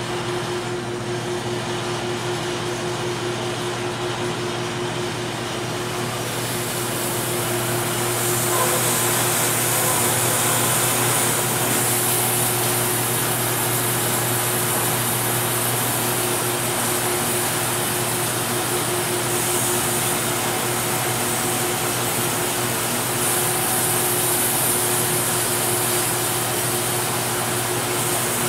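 Sawmill machinery running steadily: a constant machine hum under a thick hiss, which grows louder and brighter about six to eight seconds in.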